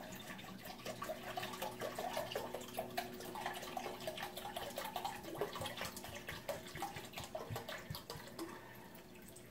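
Apple cider vinegar being poured into a measuring cup, a continuous run of small splashes that thins out and gets quieter near the end.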